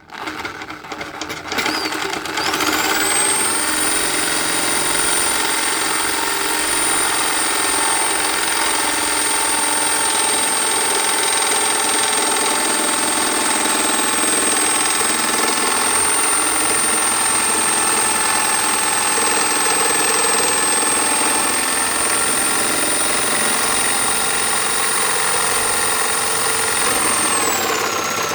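Electric drill driving a reciprocating saw attachment, its hacksaw blade cutting a slot in a wooden plate. The motor speeds up about two seconds in and runs steadily with a high whine. Near the end it slows briefly, then speeds up again.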